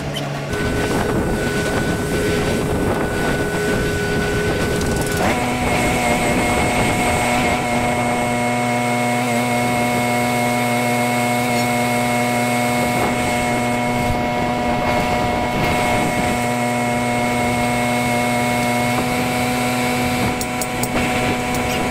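Crane engine running steadily, stepping up to a higher speed about five seconds in and holding there.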